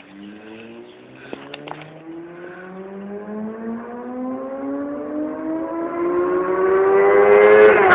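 Motorcycle engine accelerating hard, its pitch climbing slowly and steadily and growing louder, then dropping sharply at the very end.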